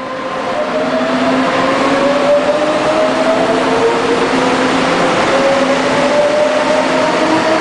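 Taiwan Railways EMU500 electric multiple unit pulling away from the platform: its traction motors whine in several tones that rise steadily in pitch as it accelerates, over a steady hum and running noise.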